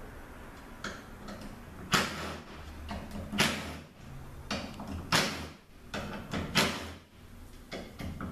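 Cordless impact driver removing the bolts from an automatic transmission valve body in short bursts, four loud ones about a second and a half apart with smaller ones between.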